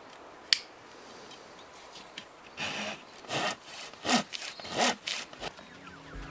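Small handsaw cutting through a wooden branch: a run of short rasping strokes, roughly one a second, starting about two and a half seconds in. A single sharp click comes about half a second in.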